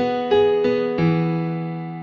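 Background music on a keyboard instrument that sounds like piano: single notes struck in an even run, about three a second, then a last note about a second in that is held and slowly fades.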